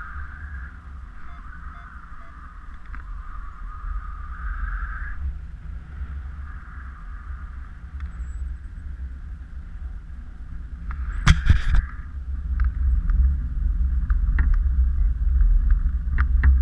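Airflow buffeting a paraglider pilot's action-camera microphone in flight: a low rumble that grows louder in the second half, with a higher hiss that comes and goes. A few sharp knocks come about eleven seconds in.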